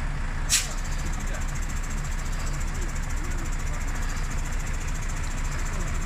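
Crane truck's diesel engine running steadily, with one short, sharp hiss about half a second in.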